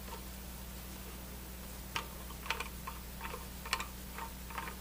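Scattered light clicks and ticks as the valve handles of a YELLOW JACKET BRUTE II charging manifold are turned down tightly by hand, seating the new nylon pistons against their brass seats; the clicks begin about two seconds in.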